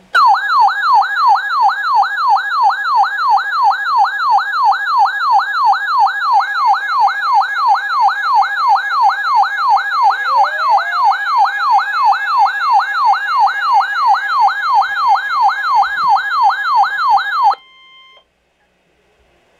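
Weather alert radio's siren alarm sounding for an incoming warning. It is a loud warbling tone that sweeps up and down about three times a second, with a fainter steady tone underneath, and it cuts off suddenly near the end.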